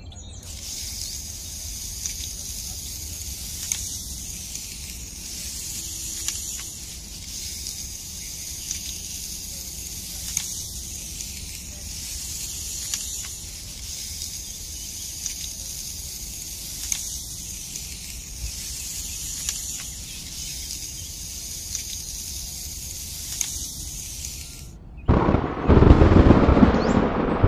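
A small metal spoon scraping and scooping through dry sand: a steady gritty hiss with a stroke every couple of seconds. Near the end a loud rush of wind and rain cuts in suddenly.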